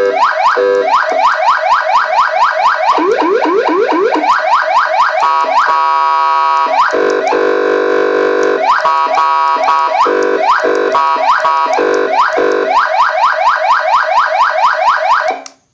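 Federal Signal AS9000B 200-watt electronic siren cycling through its tones: fast repeating upward sweeps, a steady horn-like blast for a second or two in the middle, then more quick sweeps. It cuts off suddenly near the end.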